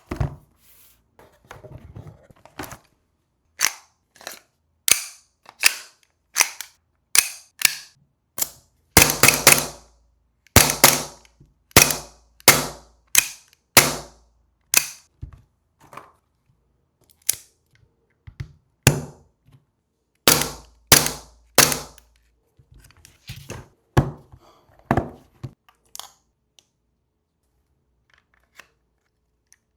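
A long irregular series of sharp snaps and clacks from an airsoft Glock 19 MOS pistol and its Safariland Incog X polymer inside-the-waistband holster being handled, about one every half second to a second, growing sparse near the end.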